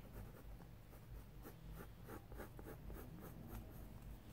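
Faint scratching of a pencil on paper in a run of short, quick strokes, several a second, as an eyebrow is sketched.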